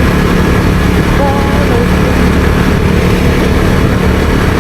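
Husqvarna Svartpilen 401's single-cylinder engine running steadily under way, with wind rush on the microphone.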